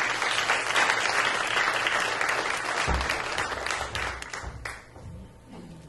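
Audience applauding, dying away about five seconds in, with a dull thump about three seconds in.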